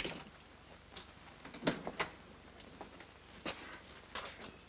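Scattered light clicks and knocks, about seven in under five seconds, as a laboratory cabinet door is opened and something is taken out of it.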